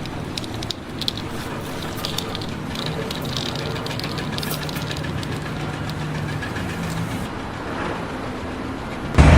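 Machinery running steadily with a low hum, with scattered light clicks and clatter. A much louder machine sound cuts in suddenly near the end.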